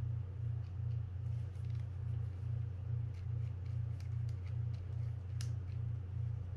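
Steady low hum that pulses about three times a second, with faint small clicks of metal reel parts (clamp plate and screws) being handled against the reel frame.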